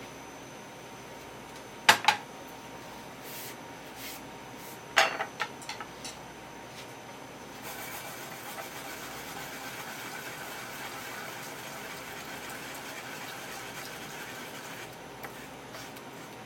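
Kitchen work sounds: two sharp knocks about two seconds in and a quick run of clinks and knocks a few seconds later, then a steady hiss lasting about seven seconds.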